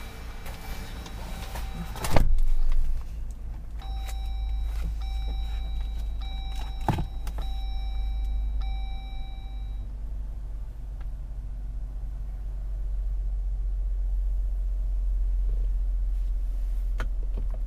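A loud noise lasting under a second about two seconds in, then the 2018 Jeep Wrangler JL's dashboard chime sounding repeatedly for several seconds, over a steady low rumble.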